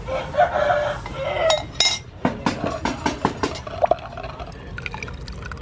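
A metal spoon scraping and clinking against a ceramic bowl as tamarind sauce is scooped out into a wooden mortar, then a run of sharp knocks in the middle, followed by fainter taps as the wooden pestle works the sauce.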